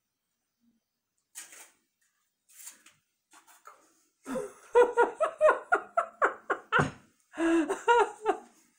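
A person laughing in a fast run of ha-ha pulses, about five a second, starting about four seconds in and lasting some four seconds, after a few faint breaths or rustles.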